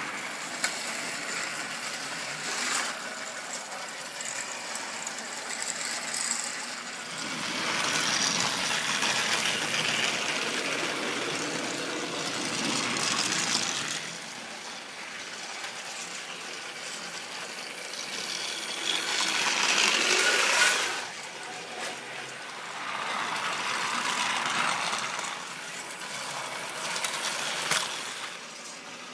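Battery-powered Trackmaster toy train engines running on plastic track: small motors whirring, wheels rattling and clicking over the track joints. The sound swells louder and fades several times as the engines pass near and go away.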